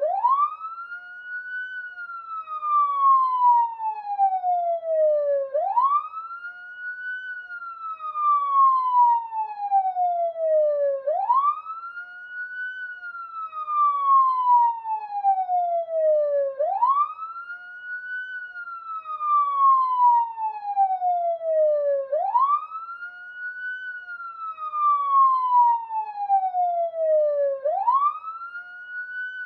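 A single police siren sounding a slow wail. Each cycle rises quickly in about a second and a half, then falls slowly over about four seconds, repeating roughly every five and a half seconds.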